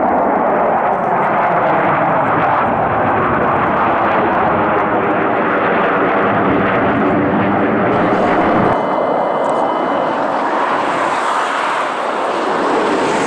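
Jet engines of a formation of fighter jets running loudly as they fly overhead, a steady roar with a slow sweeping, whooshing shift in its tone as they pass. The deep rumble drops away about nine seconds in.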